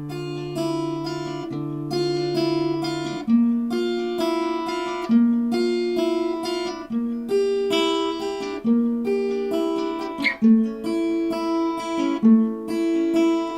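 Solo acoustic guitar playing chords in a steady, even rhythm.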